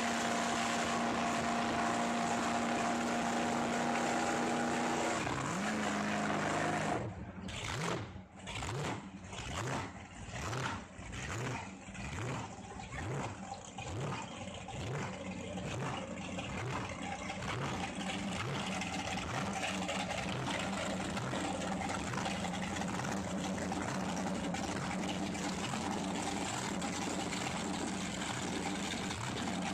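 A vehicle engine running with a steady hum. From about seven seconds in it turns into a regular pulsing, roughly once a second, that quickens and blends into a steady, even sound after about ten seconds.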